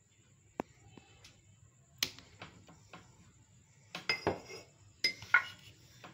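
A few sharp clinks and knocks of a utensil and a stainless steel blender jar being handled, spaced out at first and bunched together near the end.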